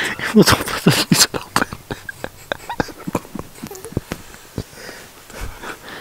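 Dry grass and twigs rustling and crackling close to the microphone: a quick string of short sharp clicks and snaps throughout, with a few brief low voice sounds in the first second or so.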